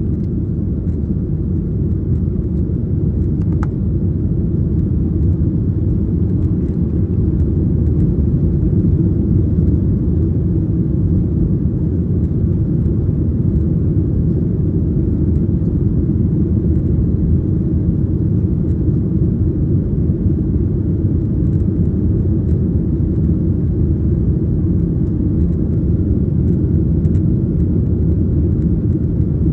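Cabin noise of a Boeing 737-800 in flight: a steady low rumble of engines and airflow.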